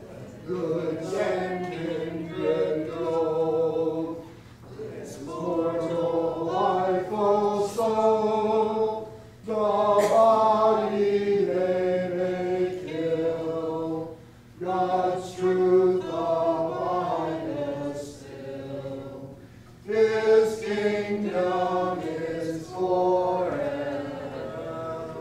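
Congregation singing a hymn unaccompanied, many voices together in phrases of about five seconds with short breath pauses between. The singing trails off near the end.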